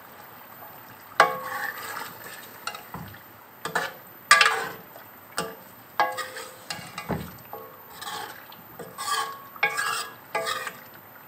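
Steel spoon stirring chicken curry in a metal pot, with repeated scrapes and knocks against the pot, each leaving a short metallic ring, over the faint sound of the masala frying.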